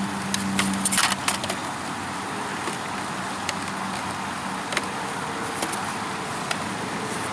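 A few sharp plastic clicks and knocks about a second in, from the RC boat's hatch cover being fitted and handled, with a few single ticks later, over a steady background hiss of traffic.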